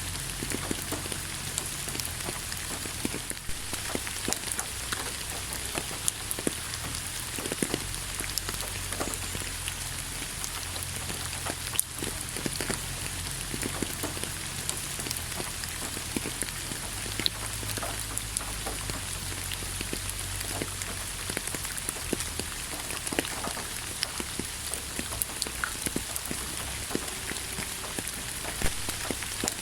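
Steady rain falling on a surface, with many individual drops tapping sharply through it and a low, steady rumble underneath.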